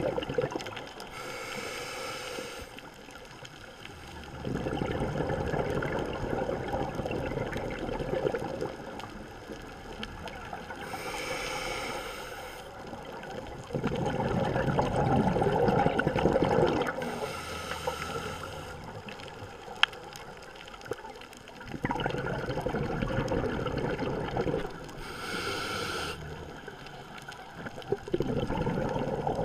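Scuba diver breathing through a regulator. There are four short hissing inhales a few seconds apart, each followed by several seconds of louder exhaled bubbles rushing and gurgling.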